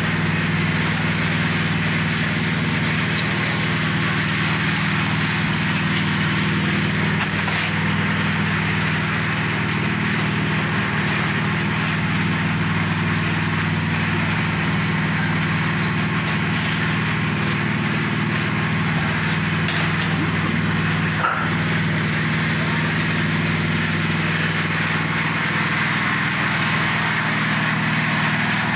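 Small petrol engine of a portable concrete mixer running steadily at an even speed.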